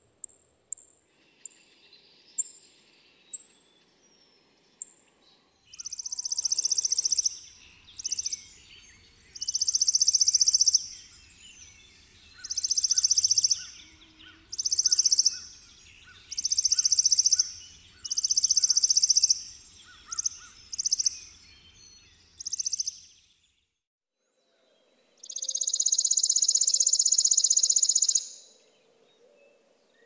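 Chipping sparrow calling and singing. It opens with a run of high, thin single chip notes that slow down, then gives dry, rapid trills of identical chips on one pitch, each about a second long, repeated with short gaps. Near the end comes a longer trill of about three seconds.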